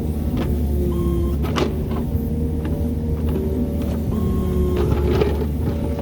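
Kubota KX71 mini excavator's diesel engine running steadily under work, with short whining tones several times and scattered clanks and knocks.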